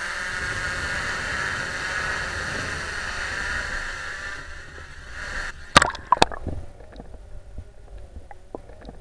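DJI Mavic quadcopter's propellers buzzing steadily as it comes down over a pool, fading after about four and a half seconds. About six seconds in it plunges into the water with two sharp splashes, and after that the sound is muffled underwater, with scattered faint clicks.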